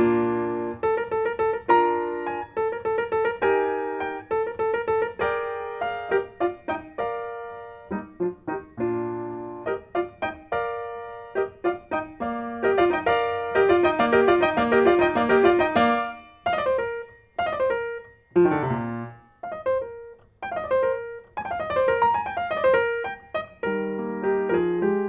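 Solo classical piano on a Steinway grand. Chords and melody give way about halfway through to a fast, dense passage, then a series of quick descending runs.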